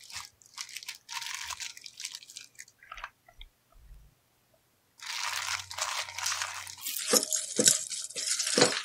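Plastic parts bags crinkling as gloved hands handle them, with a longer spell of crinkling about five seconds in as a bag is opened. Near the end, small steel bolts, nuts and washers clink sharply several times as they spill onto the workbench.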